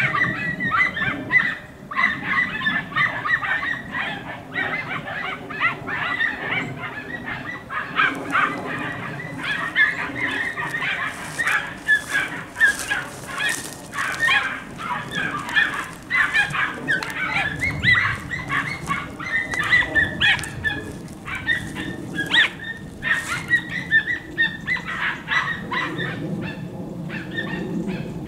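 Andalusian podencos giving tongue: a fast, almost unbroken run of short, high yelps from hunting hounds working a rabbit's scent in the scrub.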